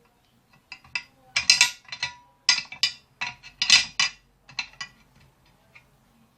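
Metal parts of a small 4-inch table saw being handled and adjusted: a string of irregular clicks, knocks and short scrapes, loudest about a second and a half in and again near four seconds, dying away after about five seconds.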